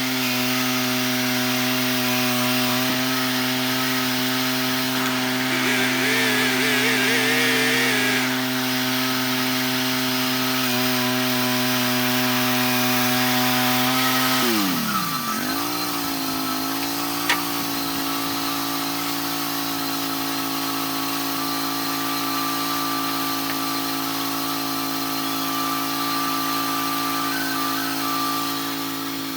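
Sawmill engine running steadily while cutting a cedar log. A warbling whine rises over it about six seconds in. About halfway through the engine's pitch dips sharply and recovers, then it runs on a little lower, with one sharp click just after.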